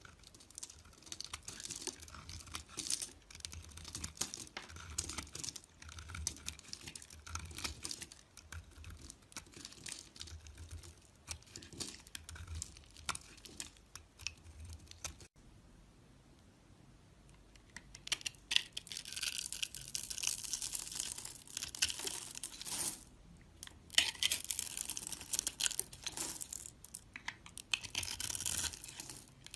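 A blade cutting and scraping through a block of soap in quick, irregular strokes. About halfway through the sound drops to a quieter stretch, then the cutting comes back denser and brighter.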